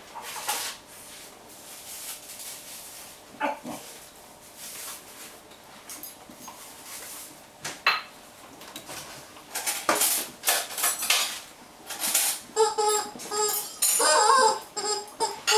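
A dog chewing and shaking rubber toys, with scattered clattering knocks. From about three-quarters of the way in, a run of pitched, wavering squawks from a rubber chicken toy being squeezed in its jaws.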